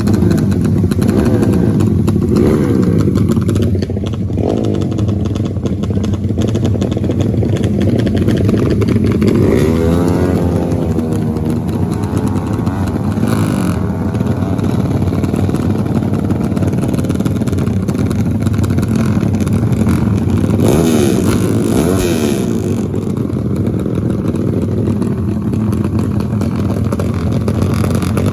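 Off-road motorcycle engine running under load, its pitch rising and falling as the throttle is opened and closed, with clear revving swells about ten seconds in and again past twenty seconds.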